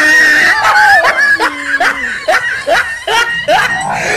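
Laughter: a run of short, high-pitched, rising bursts, about two or three a second.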